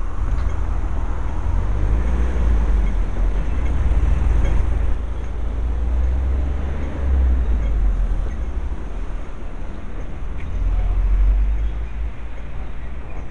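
Road traffic noise with a heavy, uneven low rumble on the microphone.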